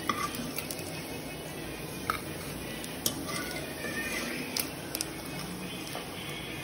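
A few light clicks and taps of fried dried fish and a ladle against a plate, over a low steady hiss.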